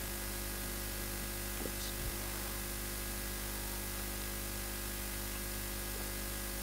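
Steady electrical mains hum with hiss from the microphone and sound system, with a brief click right at the start.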